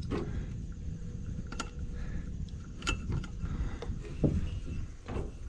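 A handful of short metallic clinks and knocks of tools and hardware on the loader's engine as new drive belts are worked onto the pulleys, over a steady low rumble.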